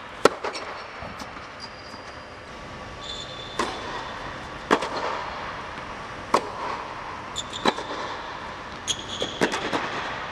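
Tennis rally: tennis balls struck hard by rackets, a sharp pop every second or two, with ball bounces in between and short rubber shoe squeaks on the court, ringing in a large echoing hall.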